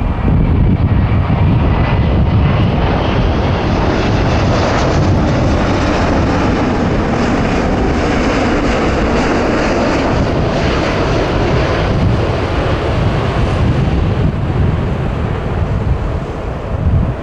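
Emirates Airbus A380 on final approach, its four jet engines making a loud, steady rumble as it passes low overhead with landing gear down. The sound fills out most strongly around the middle, with a faint high whine falling in pitch in the first couple of seconds.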